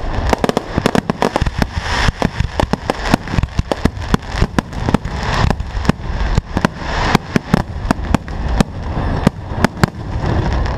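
Fireworks display: a dense, rapid barrage of shell bursts, many sharp bangs in quick irregular succession over continuous crackling.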